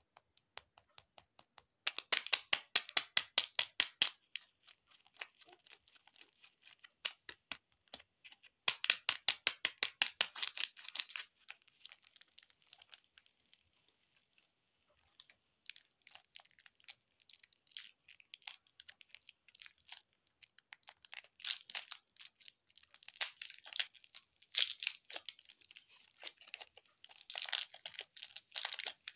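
Plastic lollipop and chocolate-bar wrappers crinkling and tearing as they are peeled off by hand. Two dense runs of rapid crackling, about two seconds in and again around nine seconds, then scattered crinkles.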